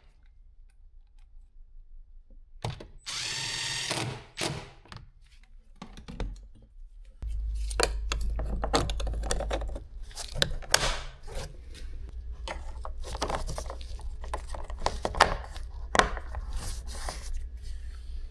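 Cordless drill-driver running in a short burst, driving the door panel screws back in, followed by a run of clicks and knocks from handling the plastic trim pieces.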